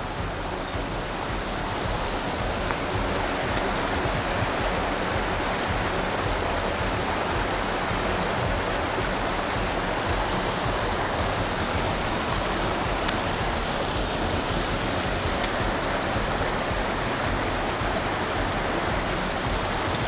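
Mountain stream water flowing steadily over rocks, with a few faint sharp ticks.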